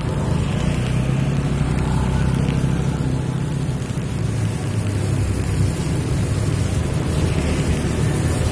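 Motor scooters passing on a wet road, their tyres hissing on the wet asphalt: one pass at the start and another near the end, over a steady low hum.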